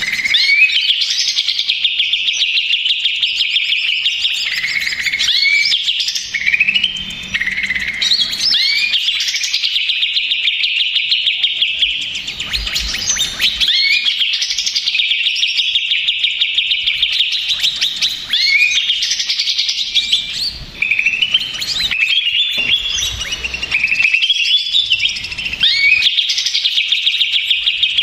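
Cucak ijo (green leafbird) singing loudly and without pause: long fast chattering trills broken by varied whistled phrases. It is a noisy, agitated bout of song.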